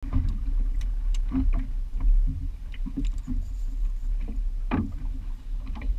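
Water slapping irregularly against a small boat's hull in short knocks and splashes, over a steady low rumble.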